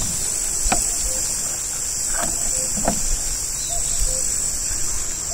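Steady, high-pitched chorus of insects, with a few light knocks about a second in and again near the middle.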